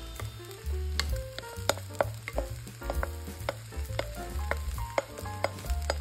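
Cooked rice sizzling as it is tipped into a hot wok, with irregular clicks and scrapes of a wooden spatula against the bowl and pan. Soft background music plays underneath.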